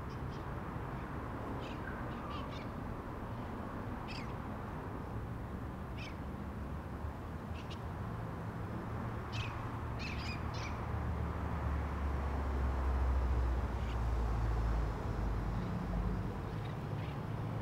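Outdoor ambience: birds chirping in short, scattered calls over a steady background hiss. A low rumble swells about eleven seconds in and dies away around fifteen seconds.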